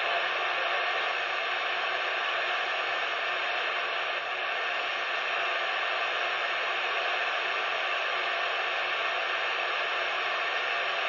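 CB radio static: a steady hiss from the radio's speaker, with no voice on the channel.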